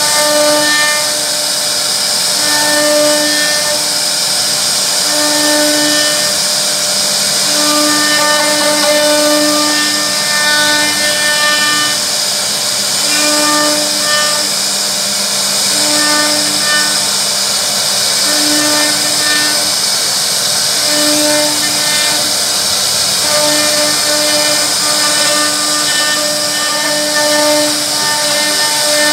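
CNC router spindle running steadily with a high whine as its bit carves a relief pattern into a wooden panel. A pitched hum comes and goes every second or two as the head moves.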